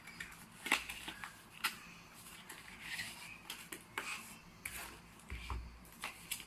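A box and its packaging being opened and handled: several sharp clicks and taps mixed with short bursts of rustling, and a dull low thump about five and a half seconds in.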